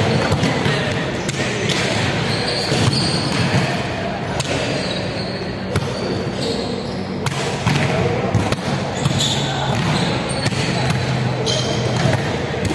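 Volleyball game on a wooden sports-hall floor: sharp slaps of the ball being hit and landing every second or two, short high sneaker squeaks, and players' indistinct calls, all echoing in the large hall.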